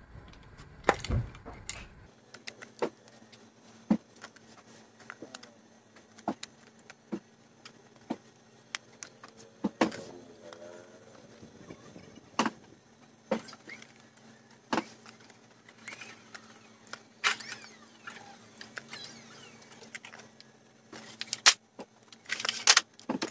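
Scattered metal clicks and clinks of a car starter motor being taken apart by hand: a socket wrench on the housing bolts, and small bolts, nuts and washers set down. A few louder knocks come near the end as the housing is separated.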